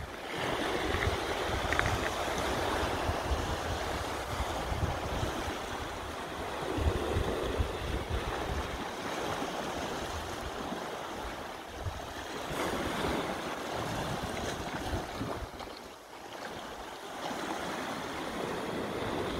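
Sea washing against a rocky shore, with wind buffeting the microphone in uneven gusts.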